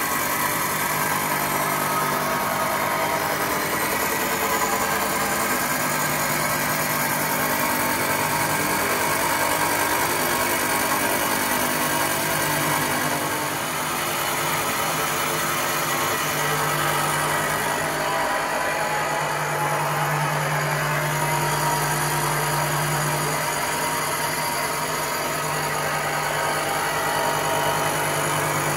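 Turret mill's face mill cutting across the face of a cast iron A-series cylinder head, skimming the gasket face: a steady machining noise of spindle and cutter, with a low hum that swells and fades every few seconds.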